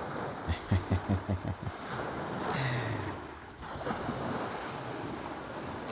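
Lake water washing on the shore with wind on the microphone, a steady rushing noise. In the first three seconds a person's voice makes a quick run of short sounds and then one brief low falling sound.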